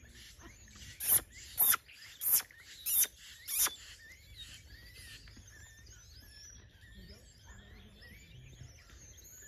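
Five short, sharp, hissy sounds in a quick row about a second in, followed by faint twittering chirps, likely birds.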